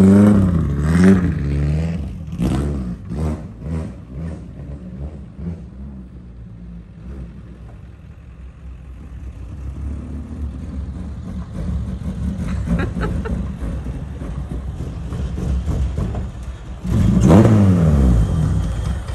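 Stripped race car's engine revving hard several times, its pitch climbing and dropping. It fades as the car drives off across the lot, then grows loud again near the end with revs rising and falling as the car comes back close.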